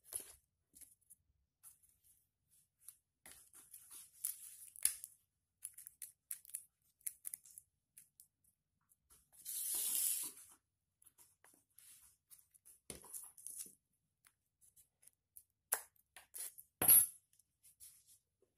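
Faint rustling and small taps of hands handling a taped cardboard model gun and rolled paper tubes. A louder rustle lasts about a second midway, and a single sharp tap comes near the end.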